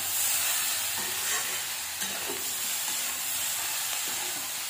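Sponge gourd pieces with onions and chana dal sizzling in a kadhai while being stirred with a spatula: a steady frying hiss with a few light scrapes of the spatula on the pan.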